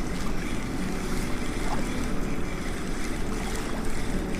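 Steady outdoor rumble of wind on the microphone and moving river water, with a faint low hum under it.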